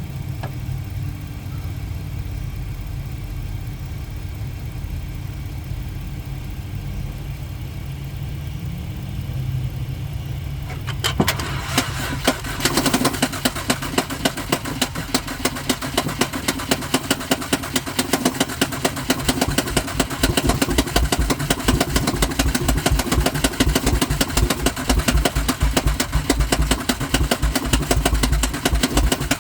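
A 2012 Honda Odyssey failing to start. A low steady hum is followed, about eleven seconds in, by a click. Then comes rapid, rhythmic clicking from the starter that keeps on without the engine catching.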